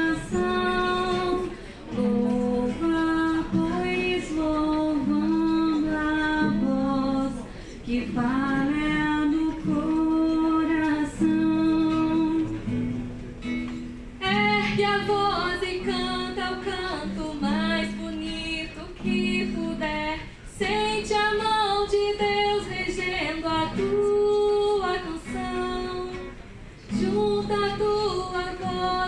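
Choir singing a song in phrases of long held notes, with plucked guitar accompaniment.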